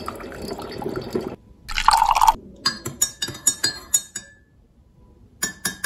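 Brewed coffee streaming from a coffee maker's brew basket into a ceramic mug, then a short pour about two seconds in. A metal spoon then stirs, with a quick run of ringing clinks against the mug, and a few more clinks near the end.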